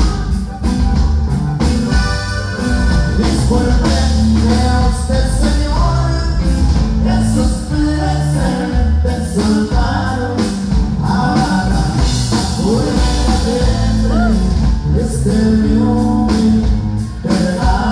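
A live norteño band playing a song, with electric bass, guitar and drum kit, and a voice singing over them.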